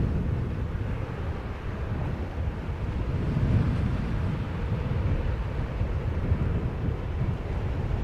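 Low, steady rumble of a Boeing 787 Dreamliner's jet engines as it climbs away after takeoff, mixed with wind buffeting the microphone.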